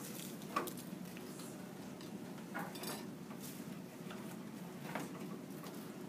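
Kitchen knives chopping vegetables on cutting boards: scattered, uneven knocks of blades meeting the boards, over a steady low room hum.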